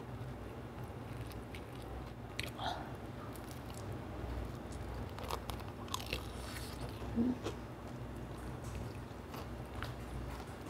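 Quiet biting and chewing on fried chicken back ribs, with a few faint crunches and small clicks over a low steady hum.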